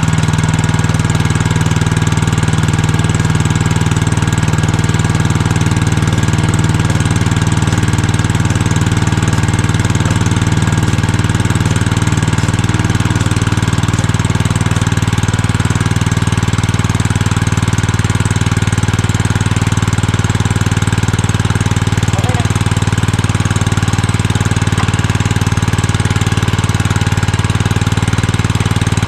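Portable Robin gasoline-engine water pump running steadily close by, driving water through its layflat discharge hose.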